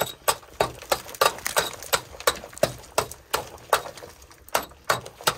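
Steel rock hammer chipping at the rock wall of a mine tunnel in a steady run of sharp strikes, about three a second, to knock loose a rock sample.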